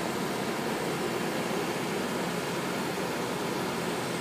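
Steady construction-site machinery noise, an even drone with no single knock or tone standing out.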